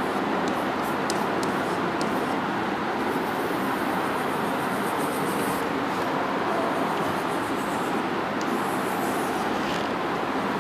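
Steady background noise throughout, with faint taps and scratches of chalk writing on a blackboard.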